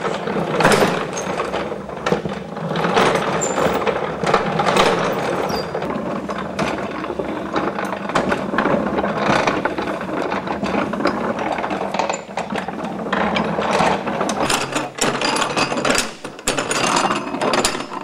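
Gearing of an antique hand-powered wooden-tub washing machine clattering as its lever is worked back and forth: a repeating mechanical clatter of meshing gears with ratchet-like clicks.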